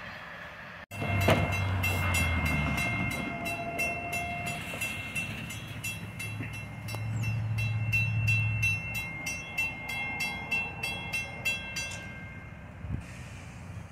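Railroad grade-crossing warning bell ringing rapidly, about three to four strokes a second, and stopping near the end. Low rumbles of road vehicles passing sound under it twice.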